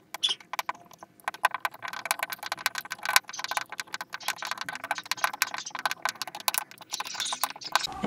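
Wood screw being driven by hand into a softwood block with the Phillips screwdriver bit of a Leatherman Surge multitool: a fast, irregular stream of small clicks and creaks as the screw turns and the tool shifts in the hand.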